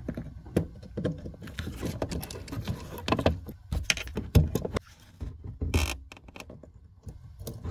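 Screwdriver with a Torx bit working at the T20 screws on a car's taillight assembly: irregular small clicks and taps of the tool against metal and plastic, with a brief scrape near the end.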